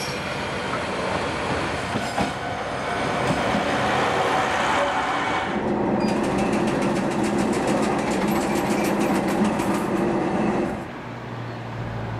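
A single-car diesel railcar runs past close by, its engine running and its wheels rumbling and clattering on the rails. Then, heard from inside the railcar, the diesel engine runs steadily with regular clicking from the wheels on the track. Near the end the sound drops to a quieter low hum.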